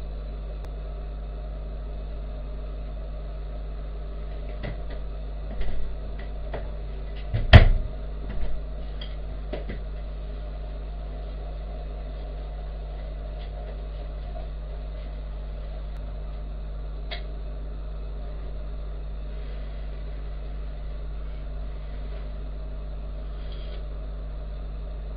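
Steady low hum with scattered clicks and knocks of pots and kitchen utensils, the loudest a sharp clatter about seven and a half seconds in.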